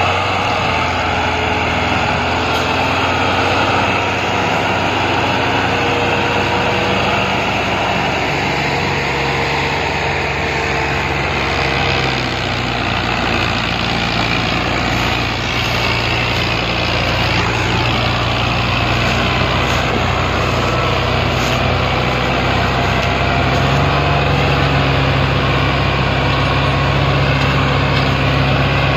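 Diesel tractor engines working hard, pulling a heavily loaded sugarcane trolley through a field. A steady low engine drone that grows a little louder near the end.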